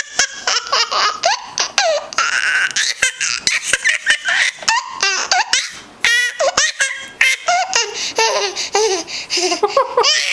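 Baby laughing in long, continuous fits of rapid laugh pulses, with a few breaths drawn in between them.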